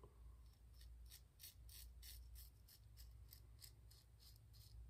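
Ever Ready 1914 single-edge safety razor scraping through lathered stubble in short, quick strokes, about three a second, faint.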